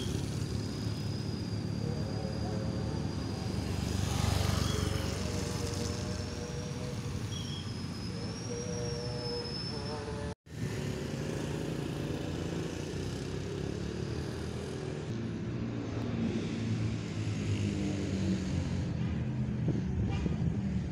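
Road traffic: a steady low rumble of passing vehicle engines, with a thin high whistle-like tone over it in the first half. The sound cuts out for an instant about halfway through.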